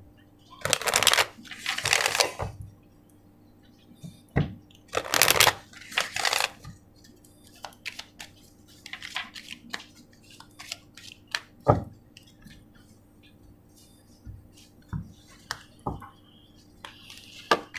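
A deck of oracle cards shuffled by hand. There are short papery rushes twice in the first few seconds, twice more around five to six seconds in, and once near the end, with soft taps and clicks of the cards in between.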